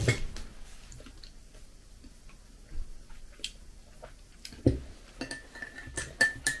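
A metal teaspoon stirring a drink in a glass mug, clinking against the glass about four times a second with a short ring on each clink, starting about five seconds in. A loud knock at the start as a ceramic bowl is set down on the table.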